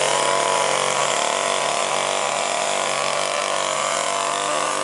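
Two-stroke chainsaw engine running steadily, a loud buzz holding one constant pitch.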